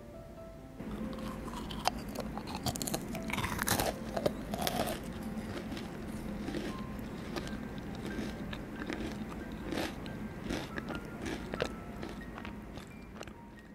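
Crunchy bites into a hard, crisp Swiss meringue cookie topped with a pretzel, then a long run of crackly chewing. The loudest crunches come in the first few seconds.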